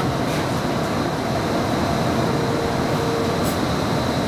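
Running noise of an Inekon Trio streetcar in motion, heard inside the passenger cabin: a steady rumble of wheels on rails and drive, with a thin, steady high-pitched whine over it.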